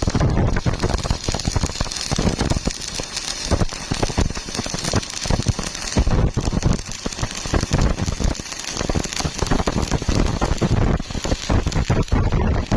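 Electric arc welding on rusty steel plate: a continuous, uneven crackling and sputtering of the arc.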